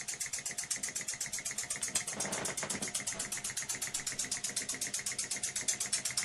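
Ind-X electrically heated toy steam engine running steadily, its exhaust chuffing in quick, even puffs at about eight a second. This is the engine working properly after its heating element was re-insulated with mica and ceramic beads.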